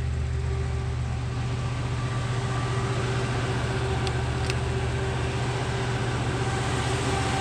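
Natural-gas engine-generator running steadily at speed, a constant low drone. About four seconds in, two short metallic clicks as a barrel bolt on the enclosure door is slid.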